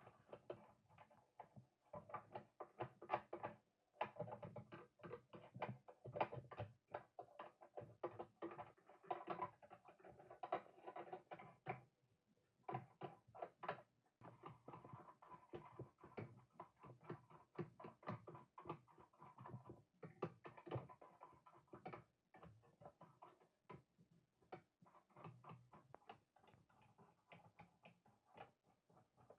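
Faint, irregular clicking and tapping of small parts of a diecast model car being handled and fitted by hand, with a few brief pauses.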